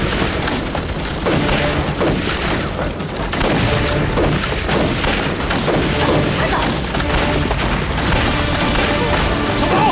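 Film gunfight: rifles and pistols firing in dense, overlapping shots, over a dramatic music score.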